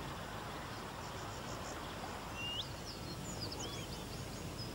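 Outdoor wetland ambience: a steady background hiss with several small birds chirping and giving short whistled calls throughout.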